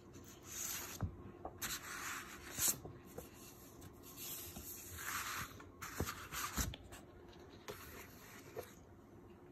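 Stiff paper art print rustling and sliding as it is handled and moved over a table, in five or so swishes, with a few light knocks.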